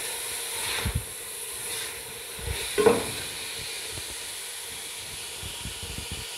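Julienned carrots, cabbage and capsicum sizzling in oil in a metal pot, with a silicone spatula scraping and knocking against the pot a few times in the first three seconds; after that only a steady sizzle.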